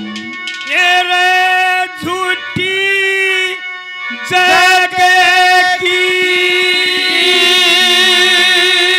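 A male folk singer's wordless alaap in Haryanvi ragni style: long, high held notes with vibrato, broken by short pauses about two and four seconds in, over a harmonium.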